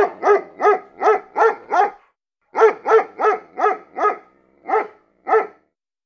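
Dog barking: a run of six quick barks, a short pause, five more, then two slower barks.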